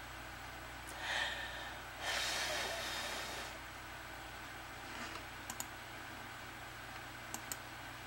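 Soft breathy exhalations, a short one about a second in and a longer one just after two seconds, then a few faint sharp clicks near the end.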